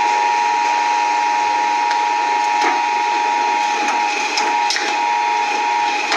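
Shredding machine running and grinding material: a steady loud whine over a rough grinding noise, with a few sharp cracks. It starts and cuts off abruptly.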